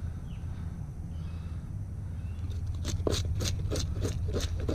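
Dive knife scraping over a mullet in quick rhythmic strokes, about four a second, starting about halfway in, over a steady low rumble.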